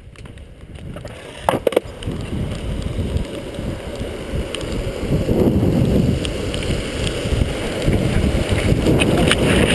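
Longboard wheels rolling down wet asphalt, a rumbling hiss that grows louder as the boards pick up speed, with wind on the microphone. A couple of sharp knocks sound about one and a half seconds in.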